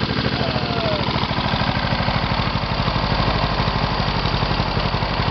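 Honda GCV135 single-cylinder overhead-cam petrol engine of a rotary push mower running steadily, its blade spinning under the deck.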